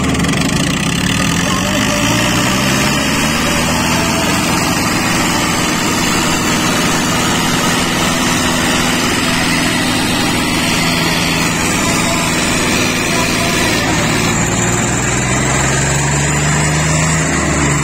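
Two diesel farm tractors running at full throttle against each other in a tug-of-war, engines labouring under heavy load. Engine pitch climbs in the first couple of seconds and rises again near the end.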